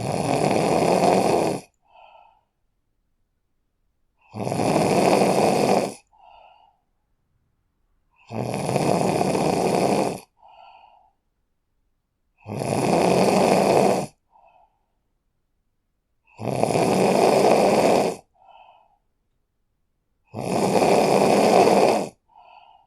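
A person snoring: six long snores, one about every four seconds, each followed a moment later by a short, faint sound, with silence between.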